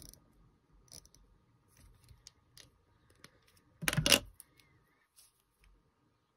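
Handheld correction tape and pen on paper: scattered small clicks and light scratches, then one short, loud scrape about four seconds in as the tape is run across the paper.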